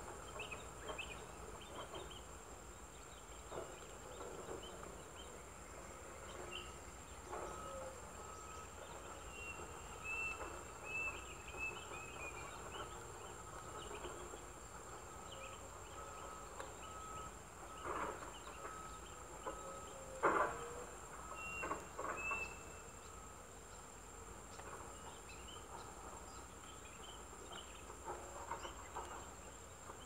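Outdoor natural ambience: a steady high-pitched insect drone, with short bird chirps here and there and a few brief rustling clicks, the loudest about two-thirds of the way through.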